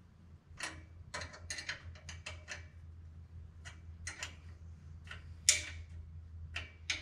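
Wrench clicking in short bursts while tightening a 13 mm nut on an exhaust pipe clamp, with one sharper metal clink about five and a half seconds in. A steady low hum runs underneath.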